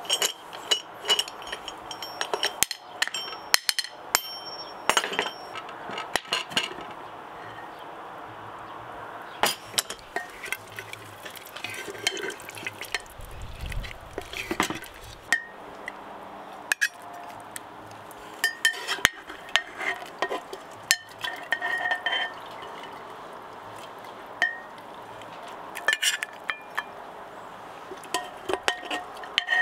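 Utensils and dishes clinking and knocking irregularly against cookware while food is prepared, over a steady hiss.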